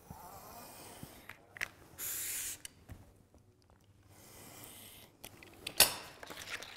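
Snap-off craft knife slicing through mounting film and paper backing along the edge of an acrylic sheet, in a few scratchy strokes, the loudest about two seconds in. A sharp knock near the end.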